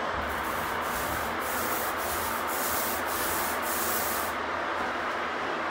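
Paint roller loaded with thick, sticky resin shower paint being rolled over a fiberglass shower wall: a rubbing sound in strokes about twice a second that stops a little after four seconds in.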